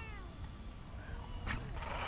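Radio-controlled truck's motor and drivetrain whining as the wheels spin down, several tones falling in pitch and fading, followed by a single click about one and a half seconds in.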